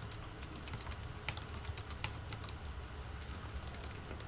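Typing on a computer keyboard: a quick, irregular run of light key clicks over a steady low hum.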